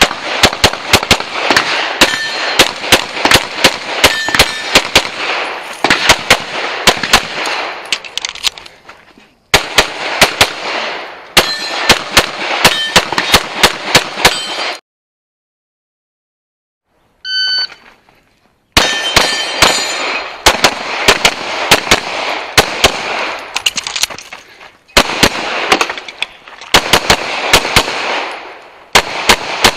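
Rapid strings of pistol shots from a semi-automatic competition pistol with a red-dot sight, several shots a second, with a few ringing pings from hit steel targets. About halfway the shooting stops for a couple of seconds. A short electronic beep, typical of a shot-timer start signal, follows, and then the shooting resumes.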